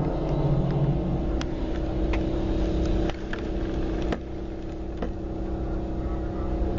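A motor vehicle's engine running steadily with a low, even hum, dipping slightly in level about three and four seconds in, with a few faint clicks.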